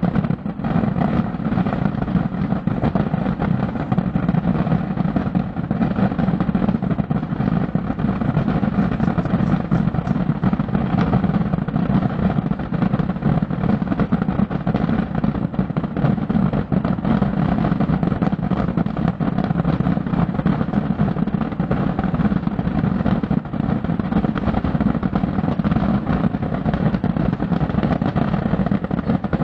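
Thousands of firework rockets and aerial bombs going off without pause in the Descarga, heard from far off as one unbroken rolling rumble with fine crackle running through it.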